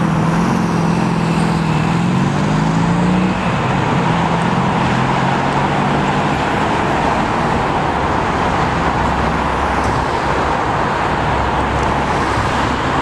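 Steady traffic noise from cars and trucks on a city boulevard and expressway. Over the first three seconds one vehicle's engine note dips and then climbs in pitch before merging back into the steady hum.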